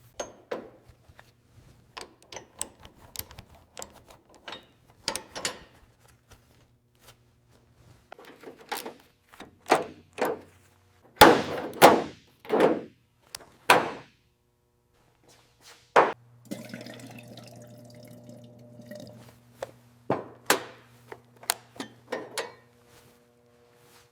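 Workshop handling noises: a string of sharp knocks, clicks and short scraping strokes, with a cluster of loud thunks about eleven to fourteen seconds in and another near sixteen seconds, over a low hum that comes and goes.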